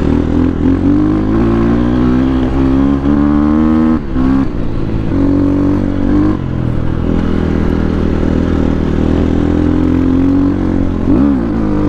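Four-stroke enduro dirt bike engine under way on a dirt road, revs rising and falling with the throttle. The pitch climbs, then drops sharply about four seconds in, and swings again near the end.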